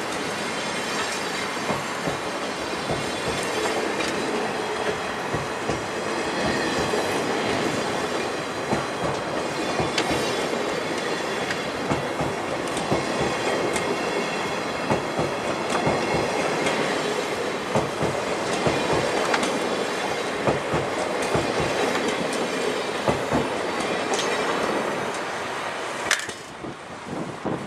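Sleeper train's coaches rolling slowly past as it pulls out of the station, wheels clicking over rail joints. The sound drops off about 26 seconds in as the last coach goes by.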